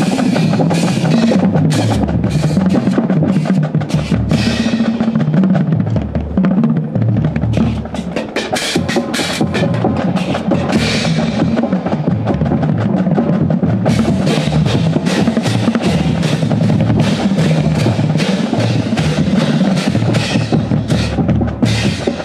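Marching drumline battery (Pearl snare drums, tenors and tuned bass drums) playing a warm-up exercise together: dense, continuous rolls and strokes, with the bass drums' low notes stepping up and down in pitch.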